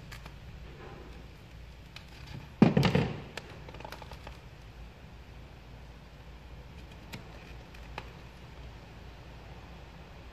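Vinyl wrap film being handled on a plastic car grille, with one loud thump-like knock about three seconds in that dies away over half a second, and a couple of faint clicks later, over a steady low hum.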